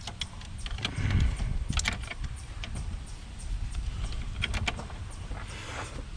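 Scattered light clicks and clinks of parts and hand tools being handled during work on a car's shift linkage, over a low rumble.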